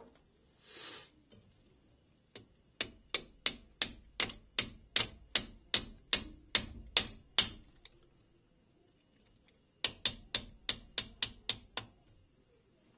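Small hammer tapping a pin through an AR-15 lower receiver to secure the trigger-group hammer: a quick run of about twenty light taps, about four a second, then after a pause a shorter run of about eight.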